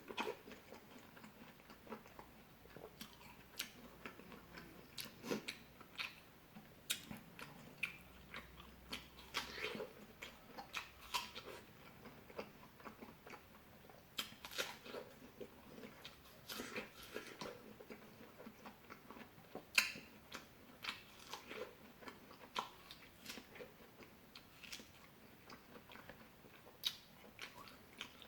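Close-miked chewing and biting of fresh fruit: a long run of wet, crunchy mouth clicks and bites at irregular intervals, with one sharper bite about twenty seconds in.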